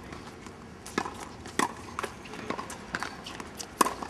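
Tennis rally on a hard court: a few sharp pops of the ball on the racket and court, about a second apart, with lighter footstep taps between. The loudest pop, near the end, is a backhand racket strike.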